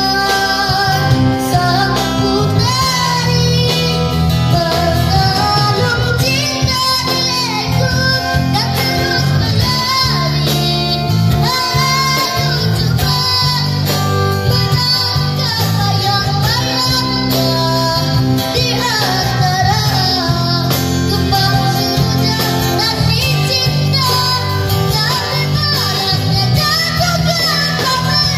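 A boy singing into a microphone with a live band of acoustic and electric guitars, played through an amplifier and speakers.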